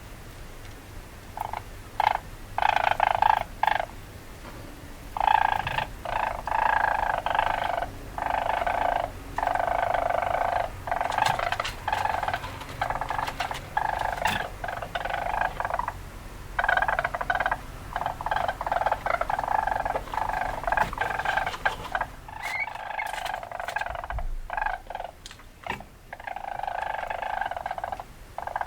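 Weasel calls: a long run of bursts, each about one to two seconds long, separated by short gaps and with a few sharp clicks.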